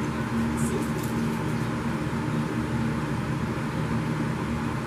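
Steady mechanical hum with a constant low tone over a hiss, unchanging throughout.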